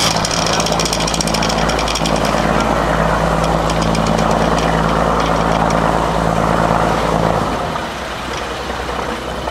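A boat's engine idling with a steady low hum, over water sloshing and splashing around the microphone at the surface. The hum drops away near the end.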